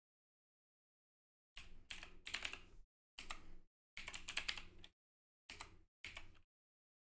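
Typing on a clicky mechanical computer keyboard: five quick runs of keystrokes starting about a second and a half in, each cutting off to dead silence.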